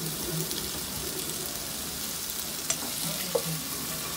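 Food sizzling steadily on a large flat iron griddle (teppan), with two short sharp pops in the second half.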